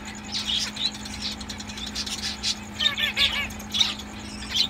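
Small caged parakeets chirping: scattered short, high calls, with a quick run of repeated chirps about three seconds in, over a faint steady hum.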